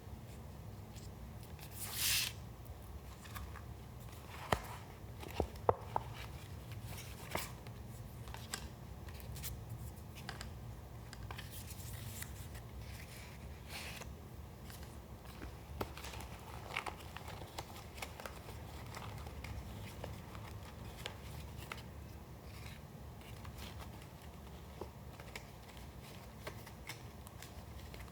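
Paper being handled for a collage. A short, sharp rasp of paper comes about two seconds in, then a few sharp clicks, and after that light scattered rustles and ticks as the paper pieces are moved and pressed down.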